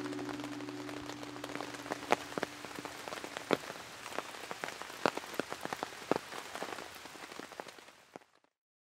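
Steady rain falling on a tent's rainfly, with single heavy drops striking the fabric now and then. The rain fades out near the end.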